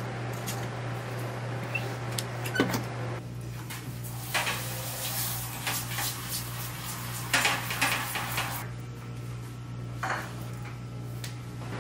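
A red-hot high-carbon steel knife blade being quenched in oil, sizzling in several bursts as it goes into the oil. Before that come metallic clanks of tongs at the heat-treat kiln, all over a steady low hum.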